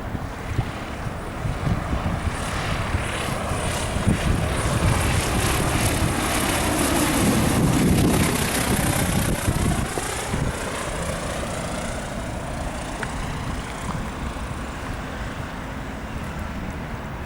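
Cessna 172 single-engine propeller plane passing by, its engine and propeller growing louder to a peak about eight seconds in, then fading away.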